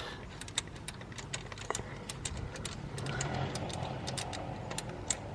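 Ratchet socket wrench clicking as a spark plug is undone from the cylinder head: a run of light, irregular clicks.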